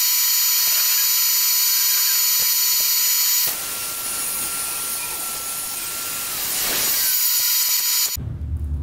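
Circular table saw running with a steady high whine while hardwood (jarrah and karri) is fed through to square an edge. About a third of the way in the sound drops in level and changes character, then swells again before stopping abruptly shortly before the end.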